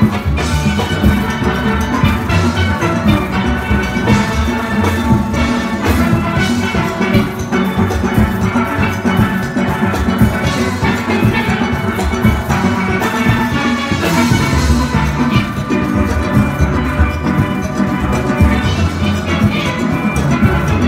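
A steel orchestra playing together: chrome lead and mid-range steelpans sounding quick struck melody and chords over the low notes of full oil-drum bass pans.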